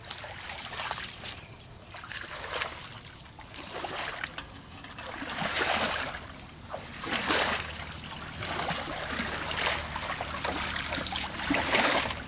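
Shallow, muddy water splashing and sloshing as a fishing net is dragged through a narrow ditch by people wading in it, swelling and fading in uneven surges every second or two.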